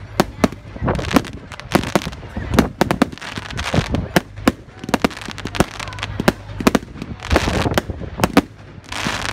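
Fireworks display going off: a rapid, irregular series of sharp bangs and cracks, several a second, with crackling noise between them.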